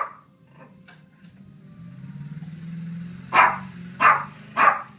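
A dog barking three times in quick succession, about two-thirds of a second apart, in the second half.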